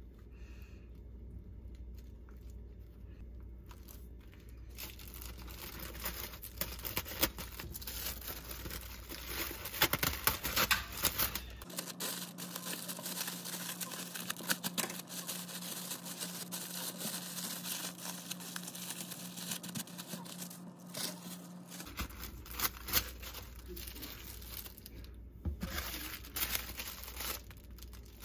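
Clear plastic wrap crinkling and rustling as hands fold it tightly around a sandwich. It starts about five seconds in, after a quiet start, and the loudest scrunches come around ten seconds in.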